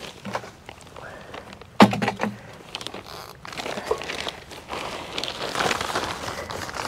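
Garden-work handling noise: a sharp knock about two seconds in, then a stretch of crackly rustling and scraping with scattered footsteps.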